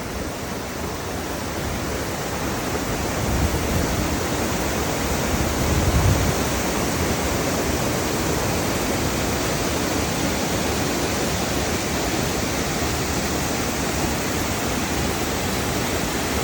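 Waterfall water rushing in a steady, loud roar that grows slightly louder over the first few seconds.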